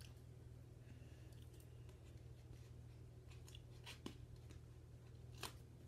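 Near silence with faint clicks and rustles of a small plastic mystery-accessory packet being handled and pulled at to open it. A couple of sharper clicks come about four and five and a half seconds in.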